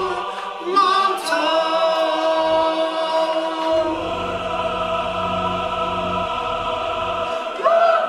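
Dramatic choral music, a choir singing long held chords that change every few seconds.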